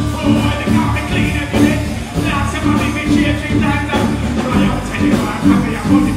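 Live band playing with a man singing and chanting into a microphone over it, the bass line repeating in a steady groove.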